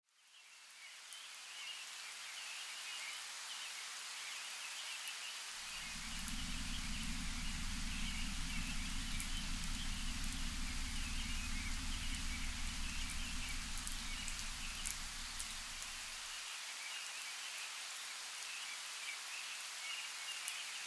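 Steady rain with a patter of falling drops, fading in at the start. A low rumble joins about five seconds in and stops about sixteen seconds in.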